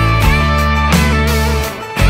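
Background music with guitar, dipping briefly near the end before the beat comes back in.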